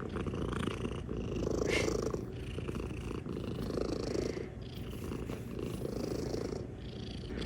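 Calico cat purring steadily, swelling and easing.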